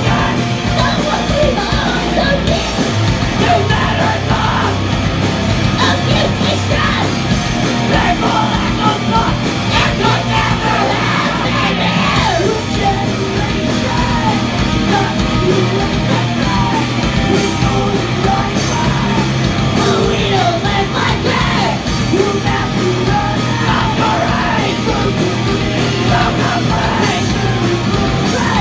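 A loud rock band playing live: drum kit, electric bass guitar and electric guitar, with shouted vocals over the top.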